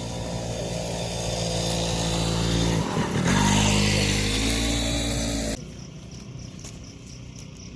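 A motor vehicle's engine running close by and getting louder, with a break and a shift to a higher pitch about three seconds in, like a gear change. It cuts off suddenly about five and a half seconds in, leaving quieter background noise.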